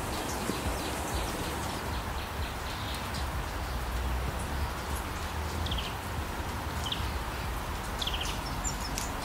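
Steady rushing of a rocky forest stream, with a few short bird chirps in the second half.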